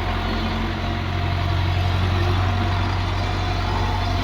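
Hitachi excavator's diesel engine running steadily with a deep hum, getting a little louder about a second and a half in.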